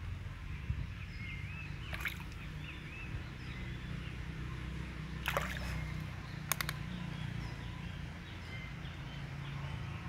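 Outdoor river-bank ambience: a steady low rumble with small birds chirping over and over, and three sharp clicks about two, five and six and a half seconds in.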